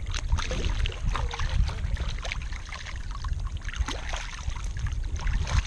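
Water splashing and trickling around a kayak in short, irregular splashes, over a steady low rumble.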